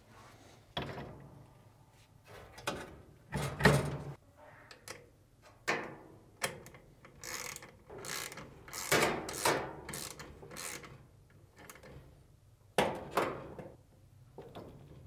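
Socket ratchet clicking in irregular short runs, busiest in the middle, as the reverse-thread nut holding a dryer blower wheel is run down and tightened onto the drive-motor shaft.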